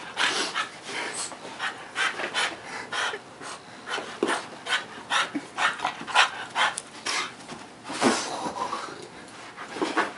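Bulldog panting hard: quick, noisy breaths, about three a second. She is out of breath from play.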